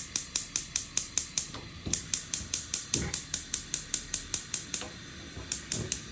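Gas hob spark igniter clicking rapidly, about six or seven clicks a second, while the control knobs are held in to light the burners one after another. The clicking pauses briefly a little before the end, with a few soft low thuds in between.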